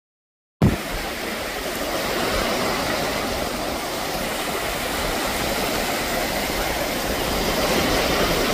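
Steady noise of surf and wind on a beach, with wind rumbling on the microphone. It starts abruptly about half a second in.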